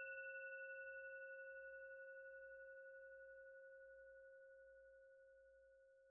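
The faint tail of a single struck bell-like chime ringing out, a few steady tones fading slowly with a slight wavering, the outro sting.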